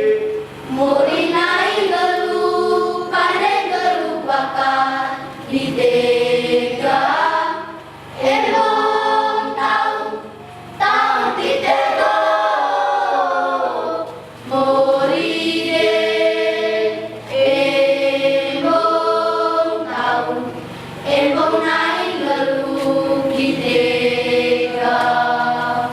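Children's choir singing a religious song in several-part harmony, in phrases broken by short pauses for breath.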